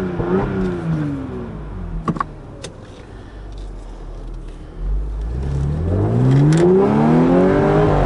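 2014 Audi S5's supercharged 3.0-litre V6 being revved in park. One rev falls back to idle over the first two seconds. A second, longer rev climbs from about five seconds in, holds high and drops away at the end.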